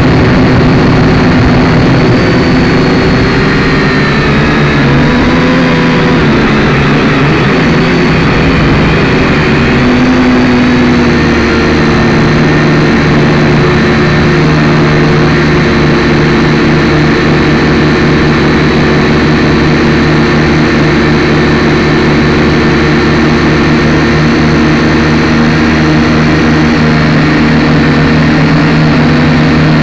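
Toy drone's motors and propellers whining loudly in flight, heard close up from on board. The pitch wavers up and down for about the first ten seconds as it manoeuvres, then holds steady.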